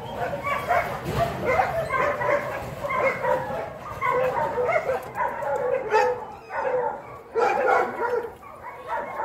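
A dog barking and yipping in a rapid run of short calls, with a brief lull past the middle.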